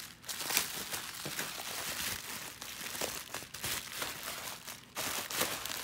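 Plastic bubble wrap crinkling and rustling as it is handled and pulled off a boxed photo set, with irregular small crackles.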